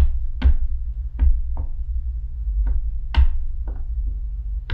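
A series of about seven sharp taps or knocks at irregular intervals of roughly half a second to a second, over a steady low hum.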